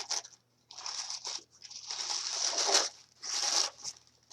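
Packaging rustling and crinkling in four or five short bursts as a boxed model is unwrapped.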